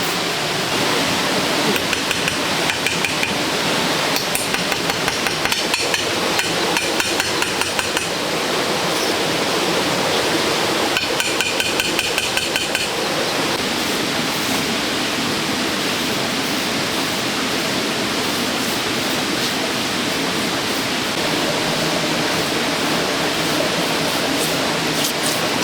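Hand-tool strikes in quick regular runs, about three a second, in three bursts during the first half, over a steady rushing noise.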